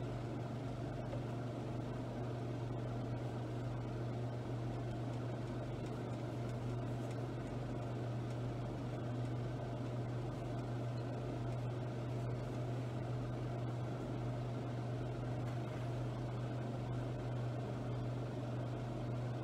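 A steady low machine hum with no change or breaks, the drone of a running appliance motor or fan.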